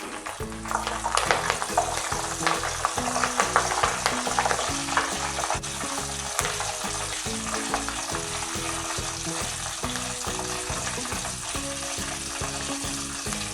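A bunch of curry leaves crackling and sizzling in hot oil. Sharp pops come thick in the first few seconds, then settle into a steadier sizzle as the leaves crisp.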